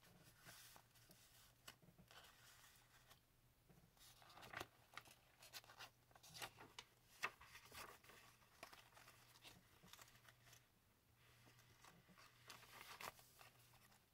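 Faint rustling and light taps of paper pages, tags and inserts being handled and turned in a handmade junk journal, over a low steady hum.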